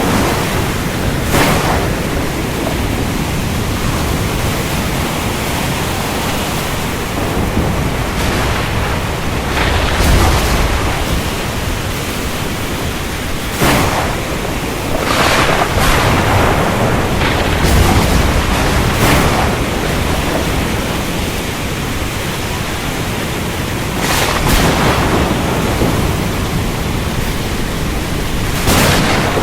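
Thunderstorm over the ocean: steady rain and surf noise, with several sharp cracks of thunder and a few deep rumbles scattered through.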